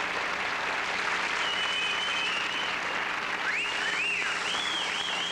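Studio audience applauding, with high whistles rising and falling over the clapping from about a second and a half in.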